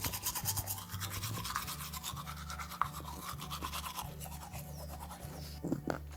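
Toothbrush sound effect: rapid, rhythmic back-and-forth scrubbing strokes of bristles.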